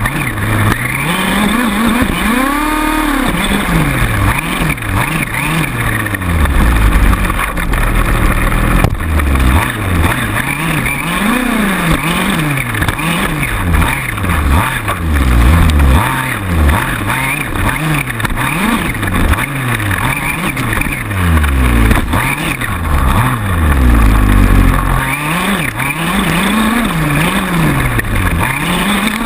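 Small two-stroke gas engine of a 1/5-scale RC buggy, heard from a camera mounted on the car, revving up and down over and over as it is driven around the track. Other RC cars' engines run close by.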